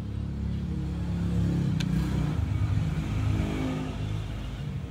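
A motor vehicle's engine going by, swelling to a peak and easing off, with a single sharp click about two seconds in.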